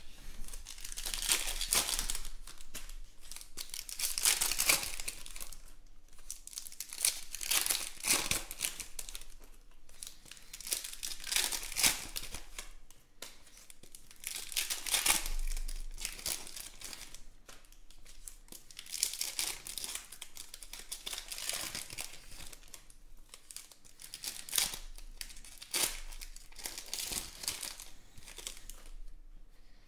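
Foil wrappers of Panini Contenders football card packs being torn open and crinkled by hand, in repeated bursts of rustling every second or two.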